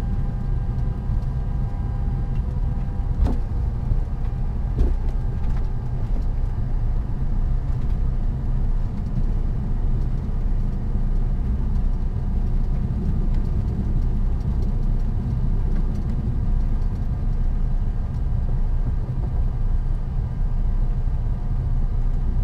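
Steady low rumble of a CRJ900 regional jet taxiing, heard from the cockpit: its rear-mounted turbofans at low thrust and the rolling wheels, with faint steady tones on top. Two light knocks sound about three and five seconds in.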